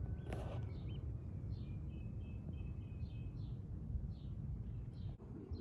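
Small birds chirping, repeated short calls with a few brief whistled notes, over a steady low outdoor rumble.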